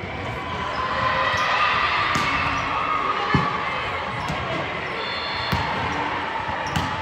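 Basketball game in a gym: a ball thuds on the court a few times, with short high squeaks of shoes and steady crowd chatter underneath.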